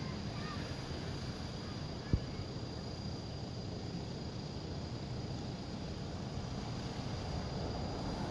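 Outdoor ambience: a steady low rumble with a thin, steady high insect drone over it, and a single sharp click about two seconds in.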